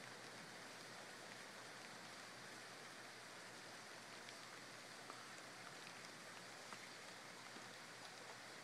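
Faint steady rain, with scattered single drops ticking.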